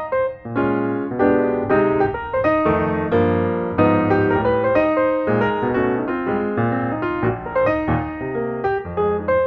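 Background piano music, notes played one after another at a moderate pace.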